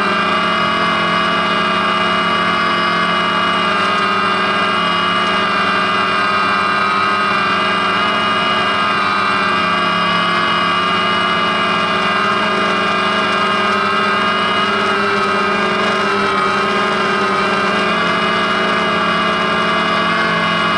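DJI Phantom quadcopter's electric motors and propellers whining steadily, heard close up from the camera carried on the drone. The pitch drifts slightly up and down as the motors change speed in flight.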